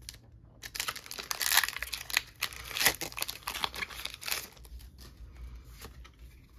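Foil Pokémon booster pack wrapper crinkling and tearing, starting about a second in, with the loudest crackles in the middle and dying away after about four and a half seconds.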